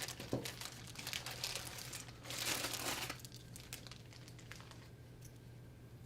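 Plastic service part bag crinkling as a new electronic assembly is pulled out of it, loudest about two and a half seconds in, then dying away to a few light clicks.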